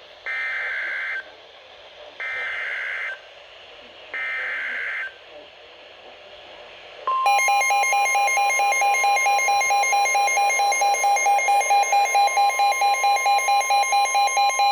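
Emergency Alert System broadcast: three bursts of SAME header data, each a raspy digital warble about a second long and two seconds apart. About seven seconds in, the loud, steady alert attention tone follows, with a lower second tone beneath it that begins to pulse about halfway through. Together they open a new warning.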